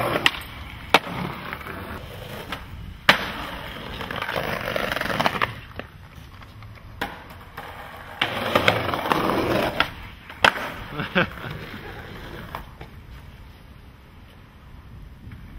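Skateboard wheels rolling on concrete in two stretches, with several sharp clacks of the board hitting the ground.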